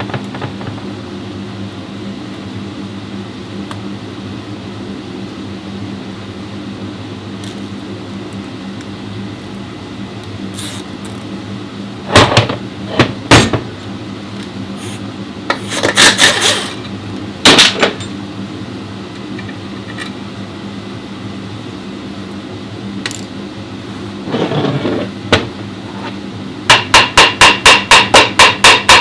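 Hammer blows on metal in a workshop: a few scattered strikes, then a quick, even run of about four blows a second near the end, over a steady low machine hum.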